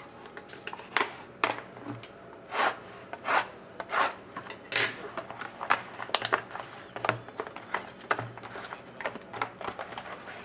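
Cardboard hockey card hobby box being opened by hand: flaps and box rubbing and scraping, and the card packs slid out and set down on the table, in a series of short, irregular scrapes and taps.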